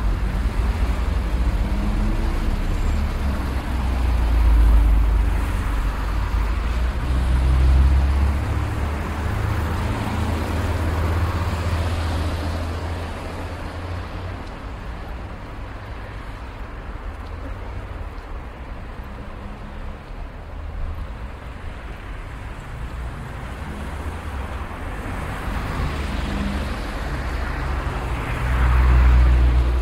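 City street traffic: cars going by over a continuous low rumble. The rumble swells as vehicles pass about five, eight and eleven seconds in and again near the end, with a quieter lull in between.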